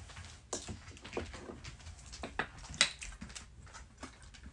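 Scattered light clicks and taps, irregular and a few a second, of a large dog's claws on a hard floor as it walks about.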